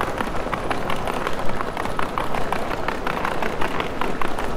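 Rain falling in a city street: irregular sharp drop ticks, several a second, over a steady hiss.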